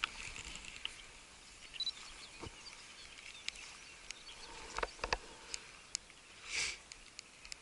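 Quiet handling sounds of a Canon DSLR being worked by hand: scattered light clicks of its buttons and dial, with a louder pair of clicks about five seconds in. A short rush of noise comes near the end.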